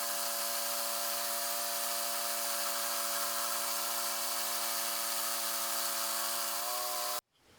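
Band sawmill running steadily, a machine hum of several steady tones that rises slightly in pitch near the end and then cuts off abruptly.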